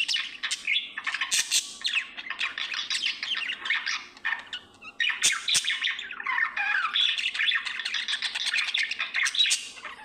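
Budgerigar warbling and chattering: a fast, continuous stream of chirps, clicks and squawks, with a short pause about halfway through.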